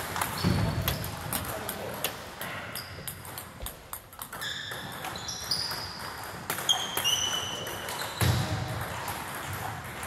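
Table tennis balls clicking again and again, at an irregular pace, off bats and tables in play. A few short high squeaks come near the middle.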